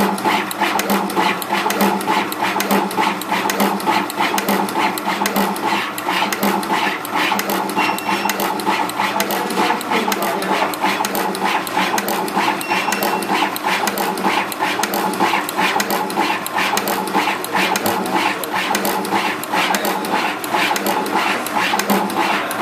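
SMT pick-and-place machine running in high-speed mode, its placement head shuttling between the tape feeders and the LED board: a steady, rapid mechanical clicking over a running motor sound.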